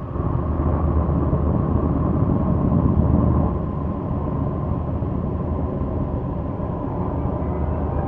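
A steady low rumble with a low hum underneath, easing slightly about three and a half seconds in.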